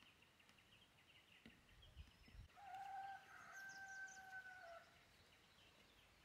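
A rooster crowing once: one long call of a little over two seconds that holds its pitch and drops slightly at the end, heard faintly over a thin high chirping in the background.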